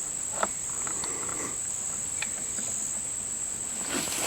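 Insects chirring in a steady, high-pitched drone, with a sharp click about half a second in and a fainter one around two seconds in.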